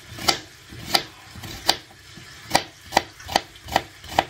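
Kitchen knife slicing onion on a cutting board: about eight sharp knocks of the blade on the board, roughly two a second at an uneven pace.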